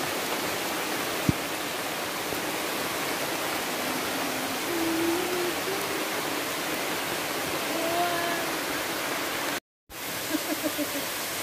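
Steady rushing of a mountain waterfall close by. A single sharp click comes about a second in, and the sound cuts out for a moment near the end.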